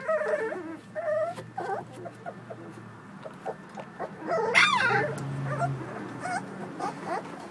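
Young American Bully puppies whining in a string of short cries, with one louder rising-and-falling cry about four and a half seconds in.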